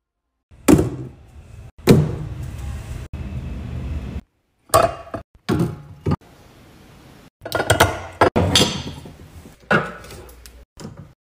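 A series of sharp knocks and clinks, each with a short ring, as glass oil bottles and a potted plant are set into black metal shelf racks on the side of a fridge.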